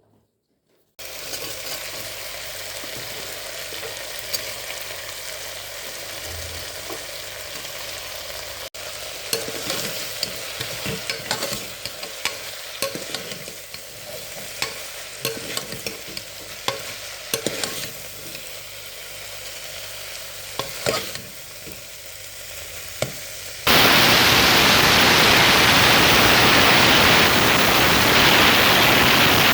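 Food frying in a pan of hot oil: a steady sizzle with frequent sharp clicks and scrapes from stirring. About 24 s in, it gives way abruptly to a much louder, even hiss.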